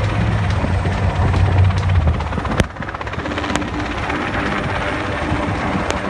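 Sikorsky S-58ET cargo helicopter hovering with a sling load, its rotor and engine running steadily. A sharp click about two and a half seconds in, after which the sound is a little quieter.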